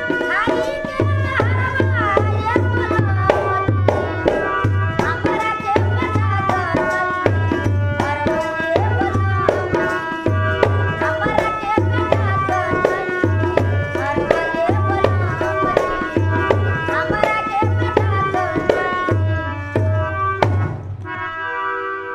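A woman sings a Bhojpuri folk song to a harmonium and a dholak, with the dholak's low strokes keeping a steady rhythm under the melody. Near the end the singing and the drum stop, and the harmonium holds a chord on its own.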